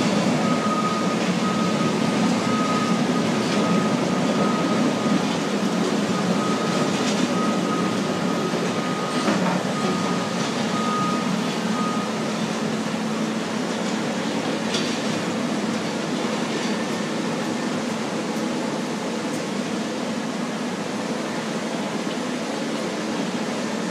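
Bulldozers grading pumped sand: a steady diesel engine drone, with a back-up alarm beeping repeatedly through the first half.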